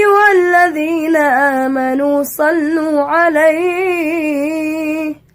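A single high-pitched voice chanting Quranic verse in long, ornamented melodic phrases. There are two drawn-out phrases with a short breath about two seconds in.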